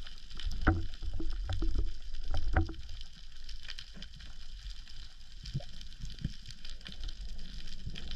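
Muffled underwater sound heard through a camera housing: a steady low rumble of moving water with scattered knocks and clicks, busiest in the first three seconds.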